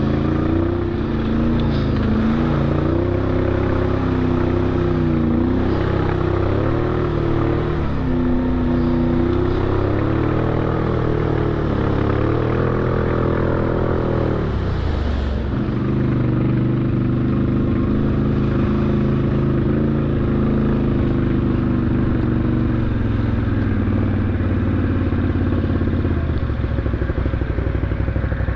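ATV engine running under changing throttle on a muddy trail, its note rising and falling, dropping sharply about halfway through and then holding steadier. Near the end it eases off to a slower, choppier idle.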